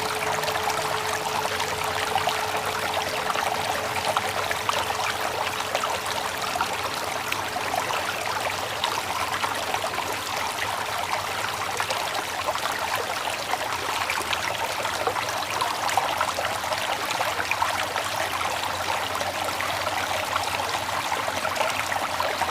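Steady sound of a flowing stream. The low hum of a meditation bell's last strike fades out in the first few seconds.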